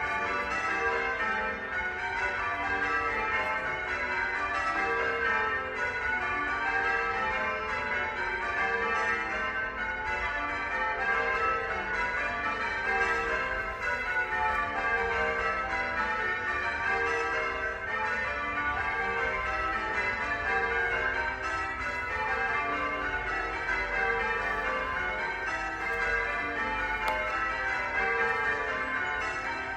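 Church bells ringing continuously, many bells of different pitches struck in quick succession so that their ringing overlaps.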